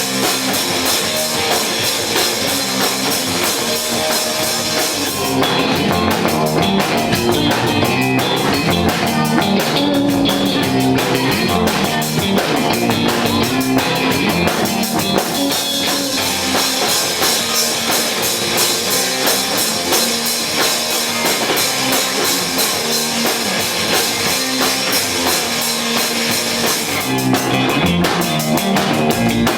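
A rock band playing live, with drum kit and electric guitar. A heavy cymbal wash thins out about five seconds in and comes back strongly near the end.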